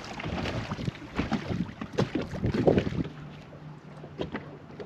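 Small waves lapping and slapping against a fibreglass bass boat hull, with wind buffeting the microphone. About three seconds in the slapping eases, and a steady low hum, the bow trolling motor running, comes on.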